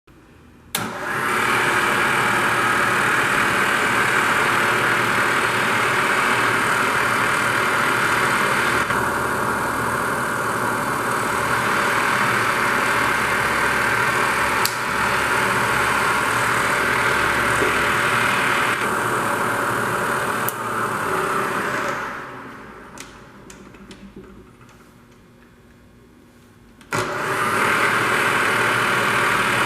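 Bridgeport Series I vertical milling machine's 2 HP spindle motor starting abruptly and running with a steady whir, its tone shifting twice. About 22 seconds in it is switched off and winds down over a couple of seconds, then starts again abruptly near the end.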